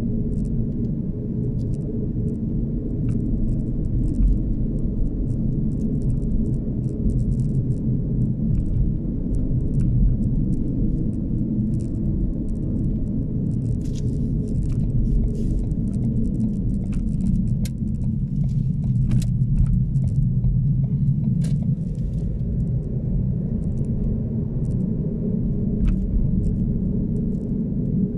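Steady low rumble of a car driving slowly, engine and tyres heard from inside the cabin, with light rattling clicks scattered through it, most of them in the middle stretch.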